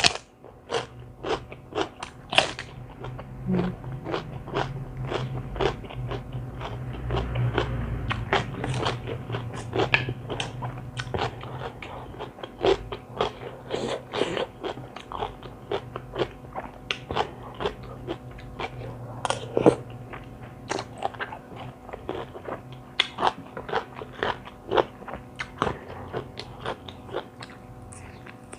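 Close-miked eating: a person chewing and crunching mouthfuls of spicy seafood rice-noodle salad with raw vegetables, with short sharp crunches and mouth clicks coming several times a second.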